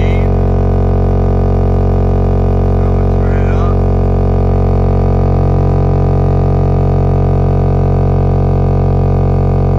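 Jenson 12-inch subwoofer playing a steady 45 Hz test tone very loud, driven by an amplifier with its gain being turned all the way up, pushing the sub toward failure. The drone holds constant, with a dense buzzy stack of overtones above the low note.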